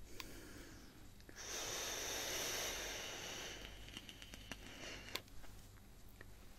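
A drag on a vape mod: a steady airy hiss of air drawn through the device, lasting about two seconds and fading out, followed by a couple of faint clicks.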